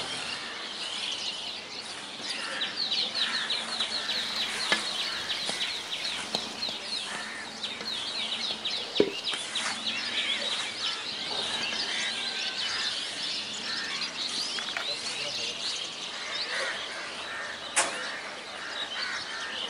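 Many small birds chirping busily in rapid repeated sweeps, with a few sharp knocks, the loudest about nine seconds in and another near the end.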